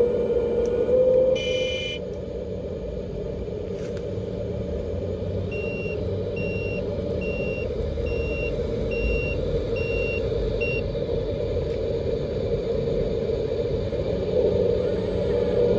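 Simulated diesel engine sound from the electronic sound kits in a model dump truck and excavator, running steadily through small speakers. A short tone comes about a second and a half in. In the middle, a reversing beeper sounds about eight times at an even pace while the 8x8 dump truck backs up.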